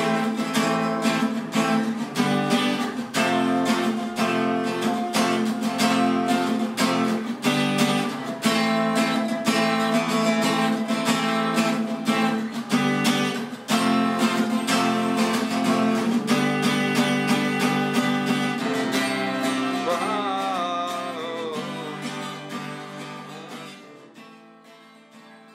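Acoustic guitar strummed in a steady rhythm, fading out over the last few seconds.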